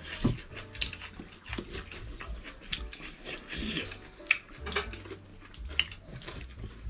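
Close-up eating sounds: chewing and lip-smacking on a mouthful of rice and fish, with frequent short, wet clicks.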